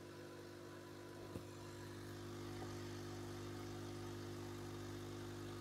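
Small disc-shaped Bedee nano aquarium air pump running with a quiet, steady hum. There is a single light tick about a second and a half in.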